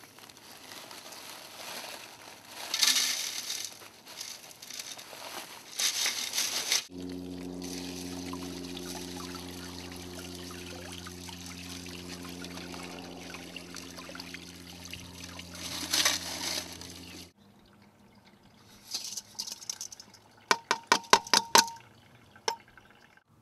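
Water from a hose pouring onto beach gravel in a brass wire-mesh sieve, wet-sieving a sand sample through stacked sieves. In the middle a steady low hum runs under the water and then stops suddenly. Near the end comes a quick run of sharp metallic taps and clinks from the metal sieve and pan.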